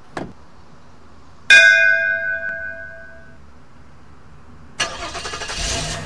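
A short click, then a single loud ringing chime that fades over about two seconds. Near the end a car engine is started with the ignition key, catching and running.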